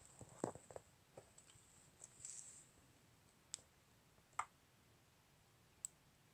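Faint, scattered clicks and light knocks, about half a dozen at irregular intervals, with a brief scratchy rustle a little over two seconds in.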